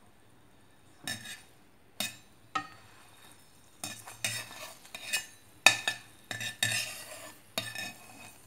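Perforated steel skimmer scraping and knocking against a frying pan as an egg puff is turned and pushed around to brown on each side: an irregular string of scrapes and clinks starting about a second in.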